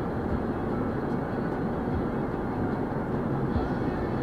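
Steady low rumble heard inside a stopped car, with no distinct events.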